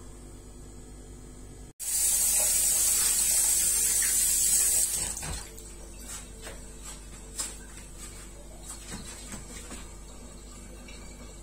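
A loud, steady, high-pitched hiss that starts abruptly, lasts about three seconds and fades out, followed by a few faint clicks and knocks.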